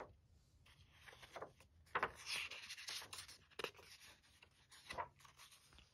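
Pages of a picture book being handled and turned by hand: faint paper rustling and rubbing, loudest about two to three seconds in, with a few soft ticks.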